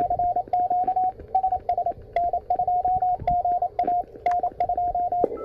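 Morse code (CW) signal from an amateur radio receiver: a single mid-pitched tone keyed rapidly on and off in dots and dashes over band hiss. It cuts off just before the end.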